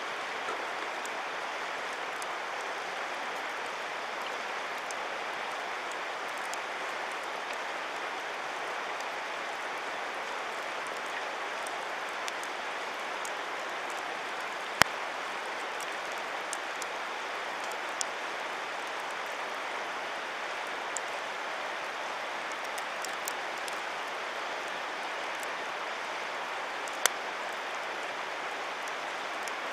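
Wood campfire crackling, with scattered sharp pops over a steady rushing hiss; the loudest pop comes about halfway through and a couple more follow later.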